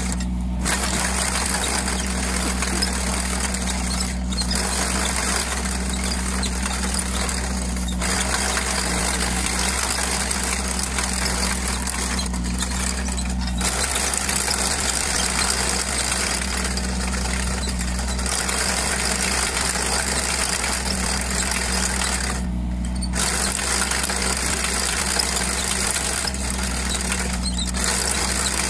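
Excavator with a chain trencher attachment running steadily as the chain digs a narrow ditch through soil: a constant engine hum under dense mechanical noise, which dips briefly a few times.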